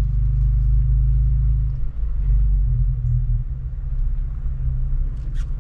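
Jeep engine and drivetrain running at low speed, heard as a steady low hum inside the cabin. About two seconds in the hum dips briefly as the clutch goes in for a shift from first to second gear, then carries on rougher and lower with the shift made at too low a speed.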